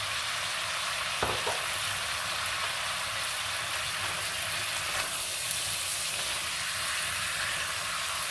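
Vegetables and chicken sizzling steadily in a hot nonstick wok, with a couple of soft knocks about a second in.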